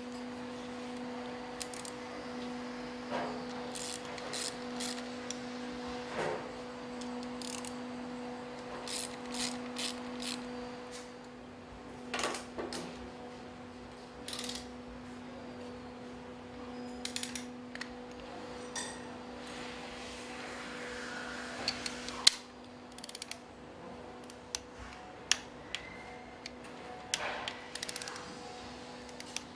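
Sharp metallic clicks and ticks of hand tools on metal, scattered irregularly over a steady low hum. Near the end a ratchet torque wrench is tightening cylinder head bolts.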